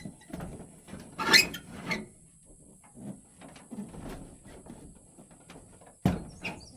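A series of knocks and scrapes from something being handled and shifted into place, loudest about a second and a half in, with a sharp knock near the end.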